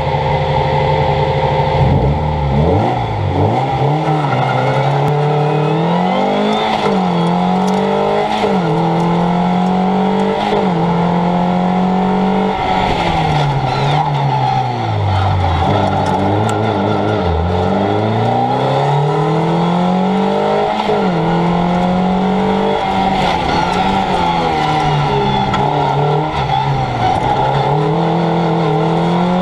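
Fiat Punto engine driven hard on a timed track run, revving up through the gears and dropping back under braking, its pitch rising and falling every couple of seconds. Road and wind noise runs underneath.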